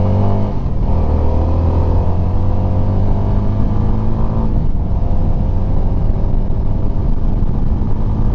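CF Moto 300SR motorcycle's single-cylinder engine revving up as the bike accelerates through the gears. Its pitch climbs steadily and drops back at two upshifts, about half a second in and again about four and a half seconds in. Under it runs a low rumble of wind on the microphone at speed.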